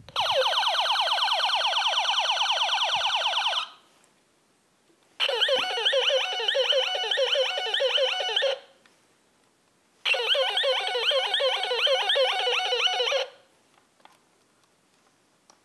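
Battery-operated toy space pistol's electronic sound effects: three bursts of about three and a half seconds each with short pauses between. The first is a rapid, repeating pitch sweep; the second and third are a fast, siren-like warble.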